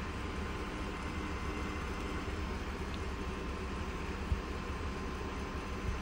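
Engine of an Asplundh tree-service truck running steadily as a low rumble, with one brief low thump about four seconds in.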